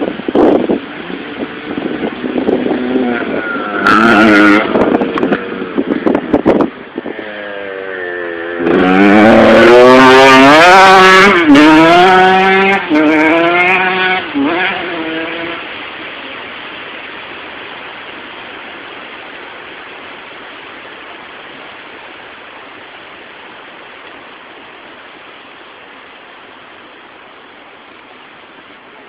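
Motocross bike engine revving hard and accelerating through the gears, the pitch climbing and dropping with each shift, loudest about nine to thirteen seconds in. It then fades away into a steady low hiss that slowly grows quieter.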